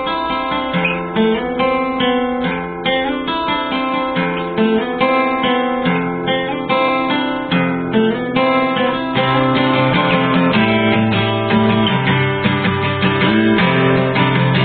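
Music led by plucked and strummed acoustic guitar, a series of short picked notes that grows fuller and a little louder with lower notes about ten seconds in.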